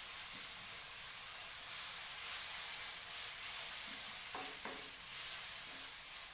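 Fried noodles sizzling in hot oil in the pan just after sweet soy sauce has gone in: a steady frying hiss.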